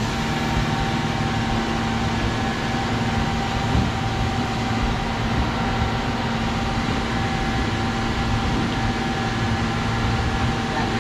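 Ready-mix concrete truck running steadily while delivering flowable fill, its engine and drum drive making a constant drone with a steady higher whine.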